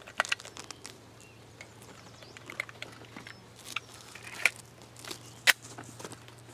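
A scatter of small clicks and taps from a Glock pistol and its ammunition being handled between shots, with the sharpest clicks near the start, about four and a half seconds in and about five and a half seconds in. A faint steady low hum lies underneath.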